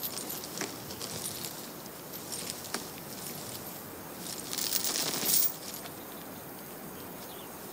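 Iron chain clinking in light scattered clicks, with a louder rattle for about a second near the middle as the tethered elephant's leg chain shifts.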